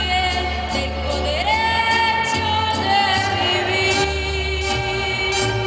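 A woman singing live with a mariachi band of violins, trumpets and guitars. About a second and a half in, the melody slides up into a long held note.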